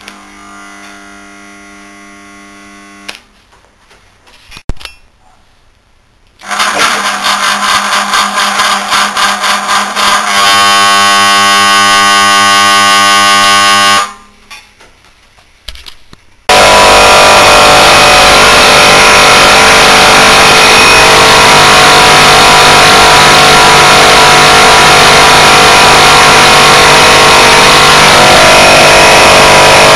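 Oil-drained hermetic refrigerant compressor motor run on single phase through a run-capacitor bank: two spells of loud electric humming a few seconds apart, then from about halfway it runs continuously with a loud, harsh, steady mechanical noise. The compressor has been drained of its oil and flooded with antifreeze, and its main bearings are tight after an earlier seizure.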